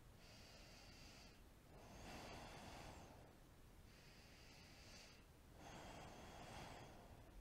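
Faint, slow ujjayi breathing, air drawn through a narrowed throat with a soft hiss. About two full breaths, with inhales and exhales of a second or so each, taking turns.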